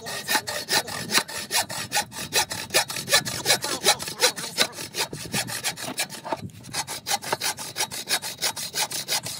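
Hand saw cutting through wood in quick, even back-and-forth strokes, about five a second, with a brief pause about six and a half seconds in.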